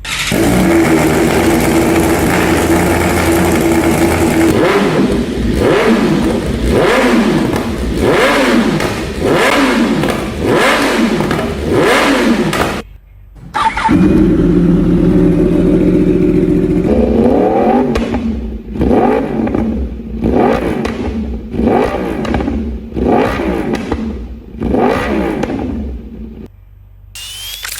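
Litre-class inline-four superbike engine idling steadily, then blipped again and again, about one rev a second, dropping back toward idle between revs. After a brief break it idles again and is blipped the same way.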